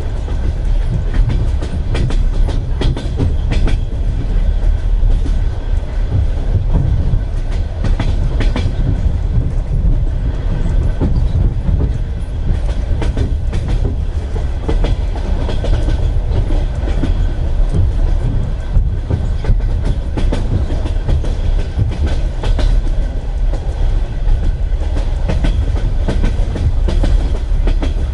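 Russian Railways passenger coach heard from inside: a steady low rumble with the clickety-clack of the wheels knocking over rail joints.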